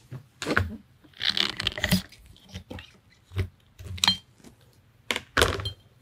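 Metal clicks, knocks and scrapes from an FX Impact M3 air rifle being handled on a table as its barrel is slid out of the action, with a longer sliding scrape about a second in.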